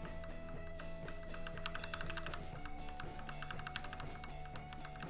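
Rapid typing on a mechanical keyboard fitted with Gateron Yellow linear switches, a quick, dense run of keystroke clicks.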